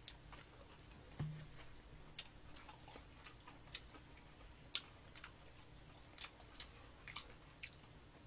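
Faint chewing of crisp fried chicken, with scattered soft crunches and mouth clicks at irregular intervals and a brief low hum a little over a second in.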